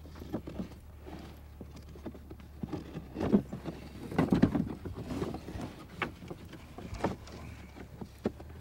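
Wooden stakes and slats at the end of a birchbark canoe frame knocking and rustling as they are handled, in irregular knocks with the busiest, loudest stretch about three to four and a half seconds in. A low steady hum lies underneath.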